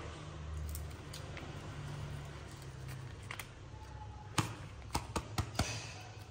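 A small paper snack packet crinkling and rustling as a pet monkey handles and picks at it, with a quick run of sharp crackles near the end.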